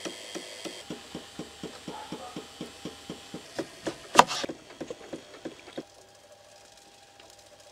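Rapid, even knocking, about four knocks a second, with one sharp chop of a knife cutting through a lemon onto a wooden board about four seconds in, the loudest sound. The knocking stops near six seconds in.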